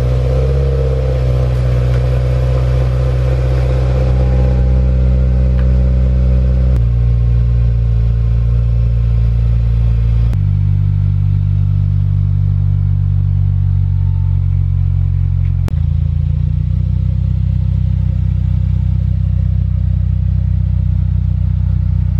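2016 Subaru WRX's turbocharged 2.0-litre flat-four idling steadily through a freshly installed Invidia N1 3-inch cat-back exhaust. The car is running for the first time since the install, for a leak check. The idle is low and even.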